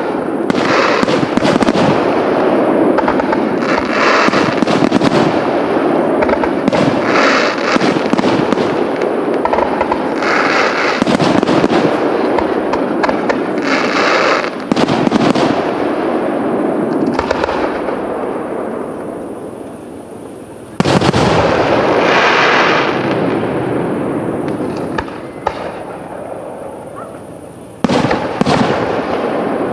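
Aerial fireworks display: shells bursting in a dense, overlapping run of bangs. The noise dies away twice and is restarted by a sudden loud bang, about two-thirds of the way through and again near the end.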